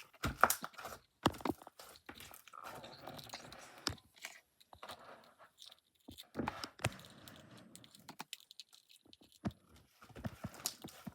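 Slime being pulled out of its tub by hand, with irregular sticky clicks and pops and stretches of squishing rustle.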